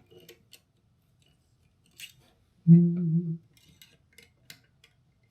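Small metallic clicks and taps of a 2 mm Allen key being worked into a grub-screw hole in an airsoft replica's body, as it searches for the screw head. Near the middle a person gives a brief hummed "hmm", the loudest sound here.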